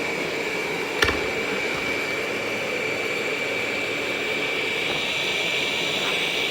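Roborock S8 robot vacuum running at max suction: a steady whirring rush with a constant high whine. A single sharp click about a second in.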